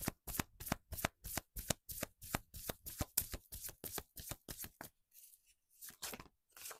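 A deck of tarot cards being shuffled by hand: a quick, even run of crisp riffling strokes, about three or four a second, that breaks off about five seconds in, with a few softer card sounds near the end.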